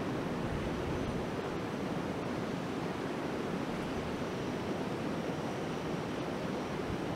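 Two gas canister camping stoves burning at full flame under a wire grill basket: a steady, even rushing noise that does not change.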